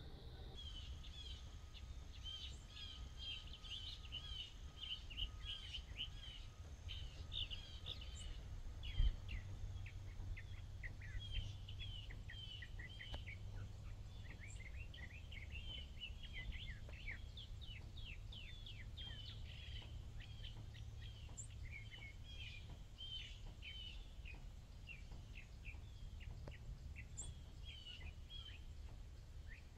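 Birds chirping continuously, many short quick calls overlapping, over a low background rumble. A single thump sounds about nine seconds in.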